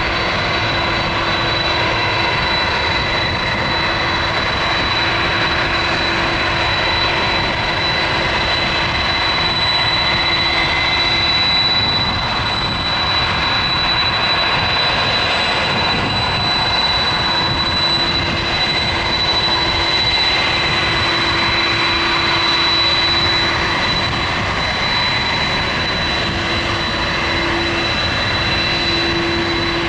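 Twin jet engines of a Boeing 767-300 running steadily at taxi power: a constant rush of jet noise with a high, steady whine on top and a lower hum that fades in and out.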